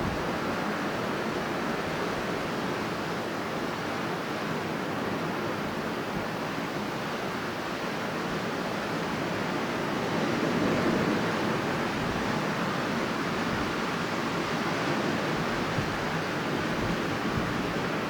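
Strong wind blowing as a steady, even rush, swelling a little about halfway through.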